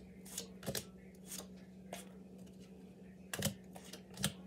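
Playing cards being handled and laid down on a table: a handful of sharp, irregular snaps, the two loudest in the second half, over a steady low hum.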